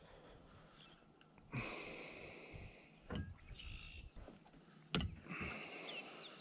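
Handling noises while unhooking a fish in a kayak: two rustling hisses of about a second each, around two seconds in and near the end, with a couple of sharp knocks in between.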